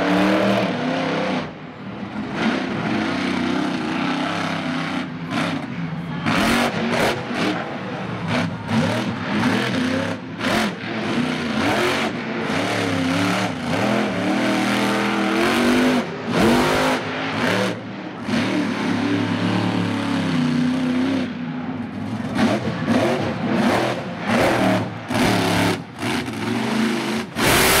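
Monster truck engine revving hard and repeatedly, its pitch rising and falling again and again as the truck drives through its freestyle run.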